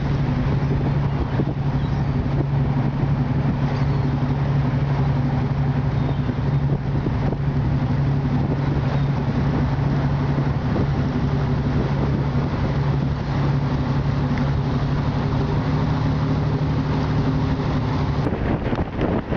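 An engine running steadily at constant speed: a low, even hum that holds one pitch throughout and cuts off abruptly near the end.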